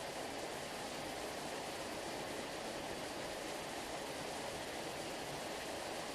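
Sea water rushing in a steady, even wash, with no separate wave breaks, so that it sounds like a waterfall.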